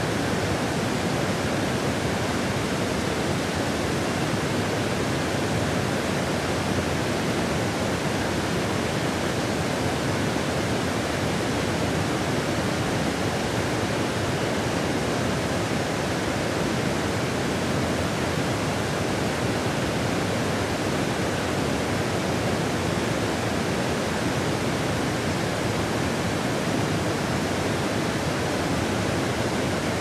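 Steady rush of water pouring over the broad rock ledge of Fukiware Falls, a wide, low curtain waterfall.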